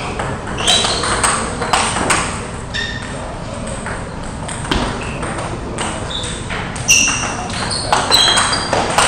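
Table tennis balls clicking off tables and bats, irregular hits from several rallies at once, sparser in the middle stretch, echoing in a large hall.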